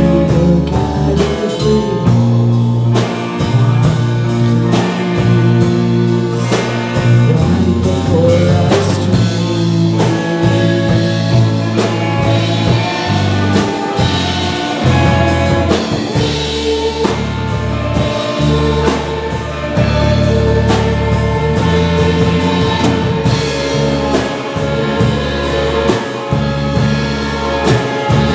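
Live rock band playing: distorted electric guitars, bass guitar and a drum kit, with a woman singing at times.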